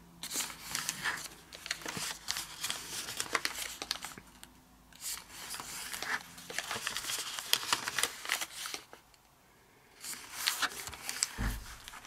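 Origami paper rustling and crinkling as a square sheet is folded, creased flat by hand and unfolded, in uneven bursts with two short pauses. A soft low thump near the end.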